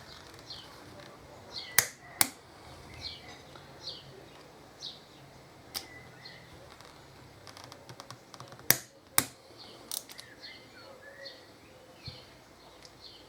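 Sharp clicks of a torque wrench as the brake caliper's bolts are torqued down: a pair about two seconds in, a single click near six seconds and another pair near nine seconds. A bird chirps over and over in the background, short high falling notes about once a second.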